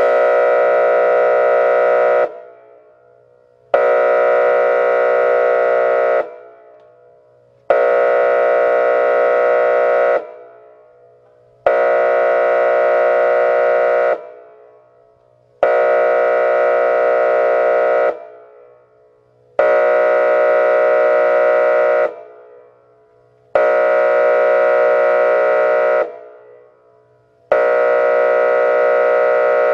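Whelen WPS-2804 electronic outdoor warning siren sounding a pulsed signal: a steady multi-note blast about two and a half seconds long, repeated eight times with gaps of about a second and a half. Each blast starts abruptly and cuts off with a short echo.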